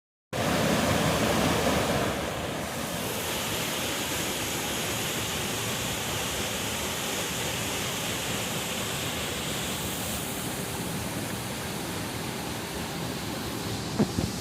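Waterfall rushing: a steady noise of falling water, a little louder for the first two seconds. A short knock sounds near the end.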